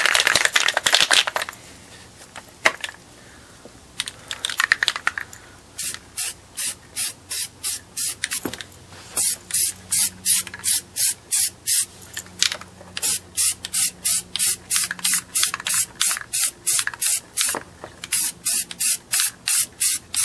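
Aerosol can of textured beige spray paint hissing: one longer spray to begin with, then a long run of short quick bursts, about two or three a second, as a first coat goes onto a plastic rifle magazine.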